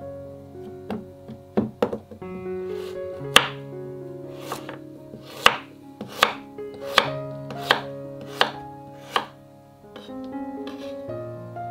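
Chef's knife slicing a raw beetroot on a bamboo cutting board: about a dozen sharp knocks of the blade striking the board, falling into a steady rhythm of a little more than one a second through the middle. Soft background music with held notes plays underneath.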